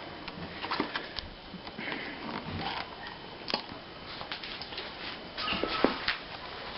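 Scattered light clicks, taps and rustles from hands handling mower parts, with a sharper knock about halfway through and a short cluster of clicks near the end.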